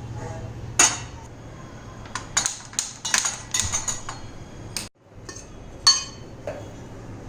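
Dishes and cutlery clinking and clattering in a string of sharp knocks, loudest about a second in and again about six seconds in.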